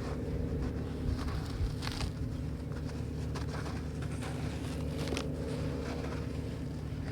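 Earthy clay bricks crumbling in water, with scattered soft crackles and patter over a steady low rumble.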